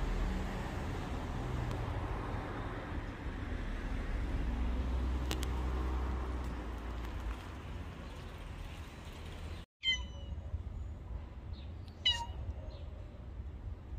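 Tabby-and-white street cat meowing, a couple of short high calls in the last few seconds, the second the loudest. Before them, a steady low outdoor rumble.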